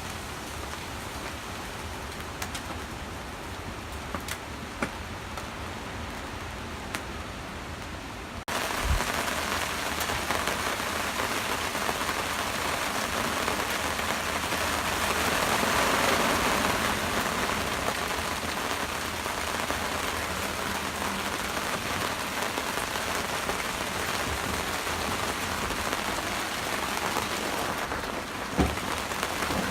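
Steady rain falling, at first lighter with scattered drop ticks, then about eight seconds in it switches abruptly to heavier, louder rain that swells around the middle and holds steady. A single sharp knock near the end.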